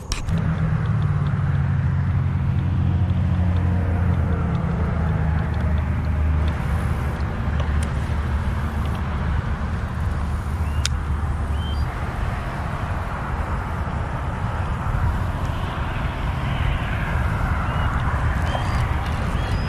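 Highway traffic: a steady low engine hum with road and tyre noise that swells for a few seconds past the middle as vehicles pass.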